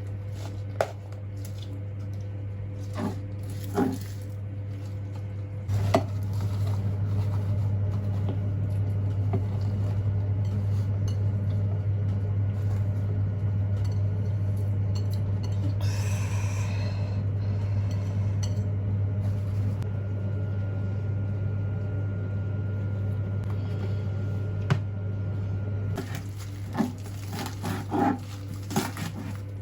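Dishes and cutlery clinking now and then over a steady electric hum, which gets louder about six seconds in and drops back near the end.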